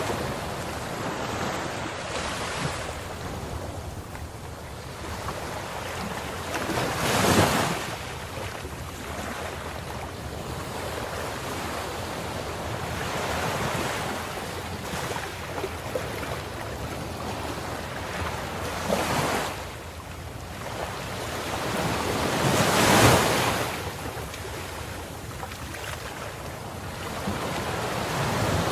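Ocean waves breaking on the shore over a steady wash of surf, with two louder breakers about a quarter and three-quarters of the way through.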